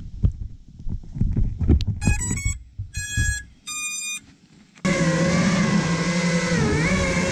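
Low handling thumps, then three short groups of electronic beeps from the FPV drone gear. About five seconds in, the steady whine of an FPV quadcopter's brushless motors and propellers in flight starts abruptly, wavering a little in pitch.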